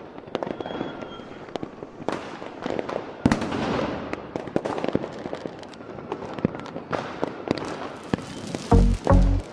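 Fireworks exploding: a run of sharp bangs over steady crackling, with one heavy boom about three seconds in. Near the end two loud deep beats of music come in.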